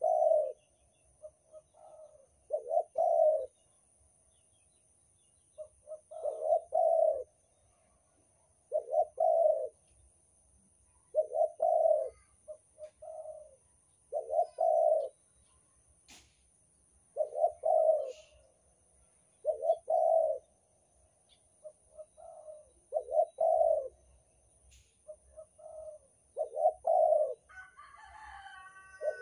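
Banten-type spotted dove (derkuku) cooing: short phrases of two or three coos, repeating every two to three seconds.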